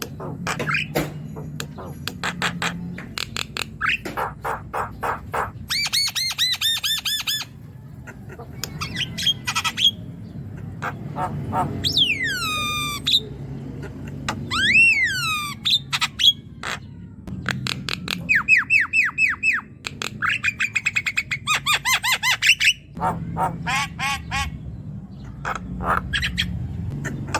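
Javan myna (jalak kebo) singing a long, varied run of harsh squawks, rapid chattering rattles and clear whistles, some gliding down in pitch. It is a lively 'gacor' song used as a lure to get a quiet young myna to start singing.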